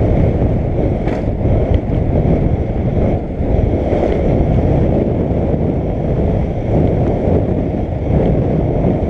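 Wind rushing over a helmet camera's microphone as a downhill mountain bike runs fast down a dirt track: a loud, steady low rush, with a couple of faint clicks about a second in.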